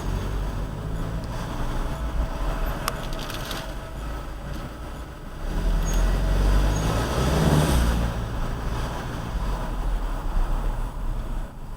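Volkswagen Golf GTI Mk7 rolling at very low speed, with a steady rumble from the car. Short high squeaks from the brakes come through about 6 and 7 seconds in, the low-speed brake squeak that the owner reports goes away later.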